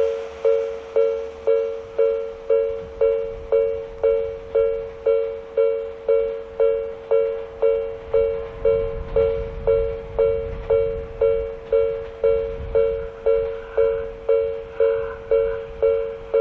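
Japanese railway level-crossing electronic warning bell ringing steadily, about two dings a second, each a two-note tone that decays before the next. The uploader takes it for the Hakone-type alarm, with a tempo close to the usual Odakyu crossing sound. A faint low rumble runs under it around the middle.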